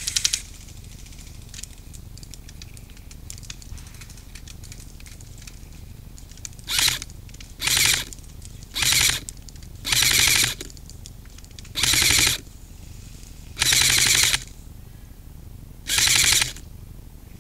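M4-style airsoft rifle firing seven short full-auto bursts, each a fast rattle lasting well under a second, a second or two apart. The bursts start about seven seconds in.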